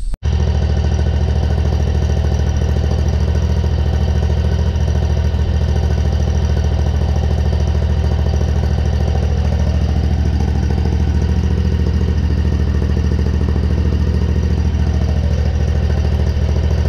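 Kawasaki FR691V air-cooled V-twin engine on a zero-turn mower running steadily, warming up right after an oil change so the fresh oil circulates and fills the new filter.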